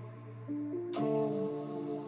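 Soft background music with sustained notes; a new chord comes in about a second in.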